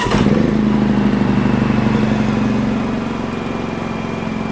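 Champion 4500-watt dual-fuel inverter generator's small four-stroke engine catching on electric start and settling at once into a steady, even run on propane, with no choke used. With its covers off it runs quiet and smooth.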